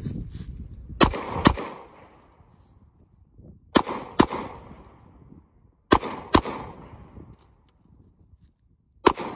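Handgun fired in quick double taps: pairs of shots about half a second apart, three pairs spaced about two seconds apart, with the first shot of another pair right at the end. Each shot is followed by a short echoing tail.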